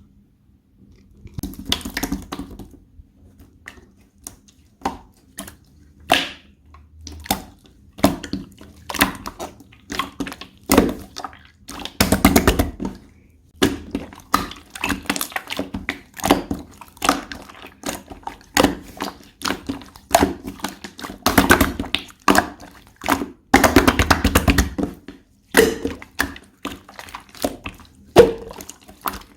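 Hands squishing, stretching and poking slime: a run of irregular sticky clicks and pops with a few longer squelching stretches. It starts after about a second of quiet.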